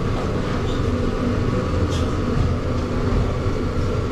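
Steady low drone of a passenger ship's diesel engine, with a short click about two seconds in.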